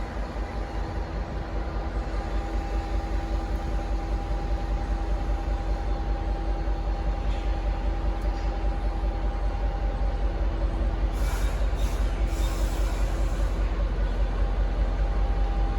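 V/Line N class diesel-electric locomotive running, a deep rumble with a steady whine over it, slowly growing louder. Short hisses of air about eleven seconds in.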